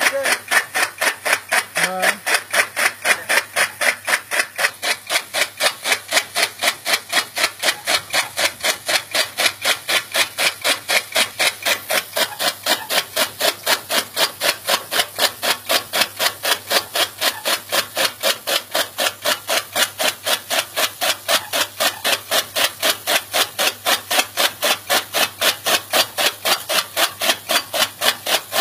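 Steady, even rhythm of rubbing or scraping strokes, about three a second, over a low steady hum.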